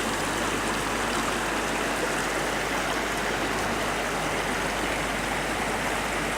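Rain-swollen creek running fast over a small cascade, a steady even rush of water.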